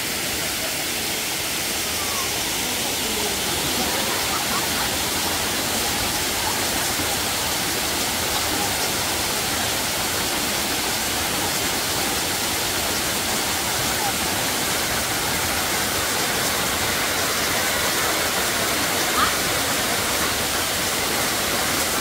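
Waterfall: a steady, even rush of falling water.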